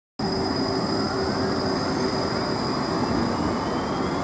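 Škoda 30T ForCity Plus low-floor electric tram running at close range: a steady rumble with a constant high whine from its electrical equipment, and a fainter whine rising in pitch over the second half.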